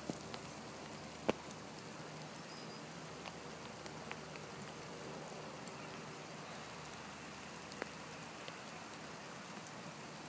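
Steady hiss of rain falling, with a few sharp clicks scattered through it, the loudest about a second in.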